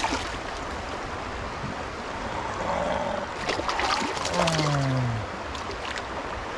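Steady rush of stream water running through a riffle. A few sharp clicks come a little past the middle, followed by a short, falling human vocal sound.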